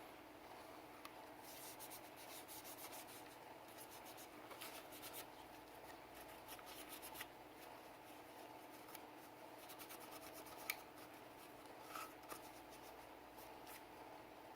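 Faint rubbing and scrubbing on a Sig Sauer P320 pistol as it is cleaned, in short strokes. A sharp click about eleven seconds in and a couple of light knocks follow.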